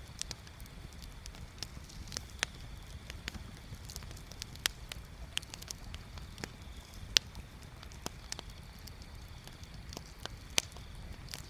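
Wood bonfire crackling, with irregular sharp pops and snaps, the loudest about seven and ten and a half seconds in, over a low steady rumble.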